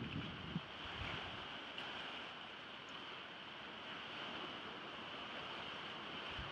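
Steady wash of small waves against a rocky shoreline, with wind buffeting the microphone in the first half-second and again at the very end.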